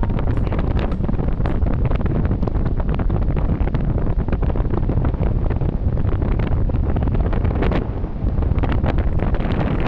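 Airflow buffeting the camera's microphone during paragliding flight: a loud, steady rush of wind, heaviest in the low end, with constant crackle. It eases briefly about eight seconds in.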